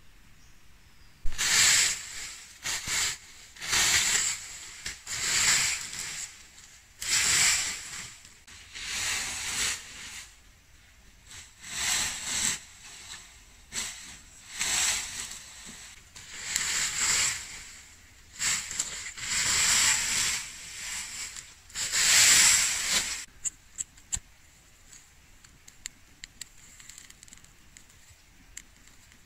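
Dry weeds and brush swishing and rustling as they are pulled up and dragged onto a pile, in about twenty separate strokes. Near the end it drops to faint crackles of dry stalks being handled.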